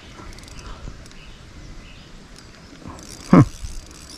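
Faint rural outdoor background, broken about three seconds in by a man's short exclamation that falls sharply in pitch.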